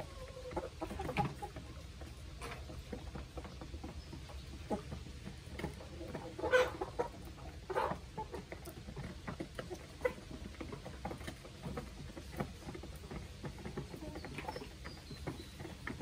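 A flock of chickens (hens and roosters) clucking now and then as they feed, with a louder call a little past the middle. Under the calls are many small taps and clicks of beaks pecking at the feed.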